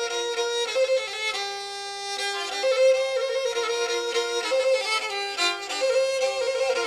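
Instrumental music: a bowed string instrument playing a quick melody on two strings at once, its notes changing every fraction of a second.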